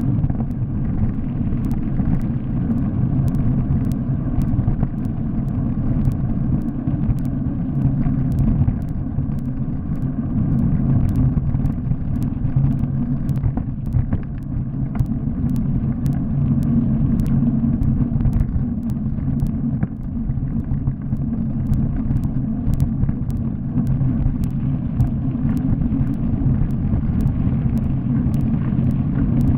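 Bicycle descending a gravel road: tyres on loose gravel and the shaking bike make a steady low rumble, with many scattered sharp ticks.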